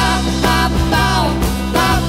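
Live pop band playing: acoustic guitars, electric bass and drum kit, with a sung vocal line over them.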